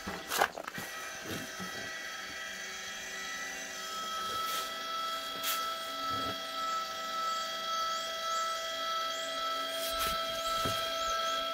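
Electric linear actuator on a go-kart's tipping trailer running, lowering the trailer bed, a steady whine that strengthens a few seconds in. A sharp knock about half a second in and a few fainter clicks.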